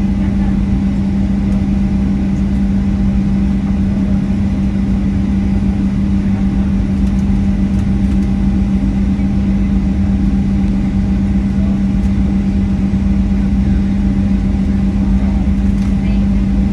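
Steady cabin noise inside a Boeing 737-700 with its CFM56-7B jet engines running, a constant low hum under a rushing haze, with no change in level.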